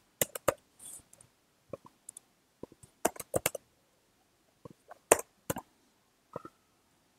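Computer keyboard keys and mouse buttons clicking, a few sharp clicks at a time with short pauses between.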